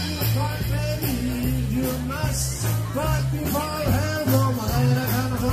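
Live jazz band playing through a PA, with a bass line moving note to note under a melody.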